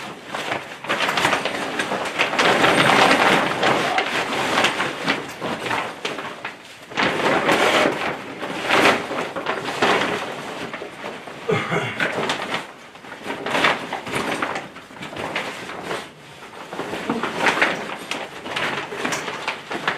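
Mylar-lined grow tent fabric rustling and crinkling as it is pulled and worked over the steel frame to get the corners in, in uneven swells with scattered sharp clicks.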